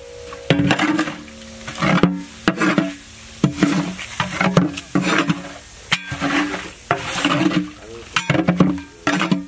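A long metal spatula scraping and stirring across the bottom of a large aluminium pot, in irregular strokes about one to two a second, each stroke making the pot ring briefly, while paste fries in hot oil with a light sizzle.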